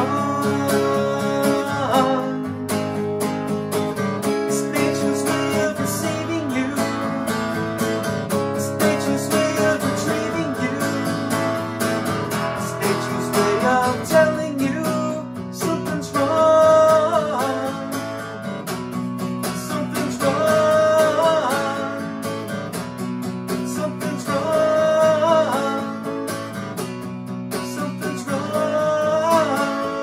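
Steel-string Taylor acoustic guitar strumming chords in an instrumental passage of a folk-rock song, with a wordless vocal line over it at times.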